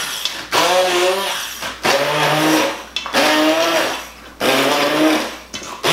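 Hand-held immersion blender chopping chunky raw tomatoes and vegetables in a steel bowl. It runs in short bursts about once a second, and its motor pitch wavers and sags as the blade bites into whole pieces that are only beginning to blend.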